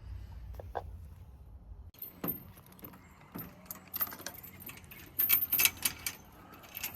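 A low rumble cuts off about two seconds in, followed by a run of sharp clicks and light rattles, densest about five to six seconds in.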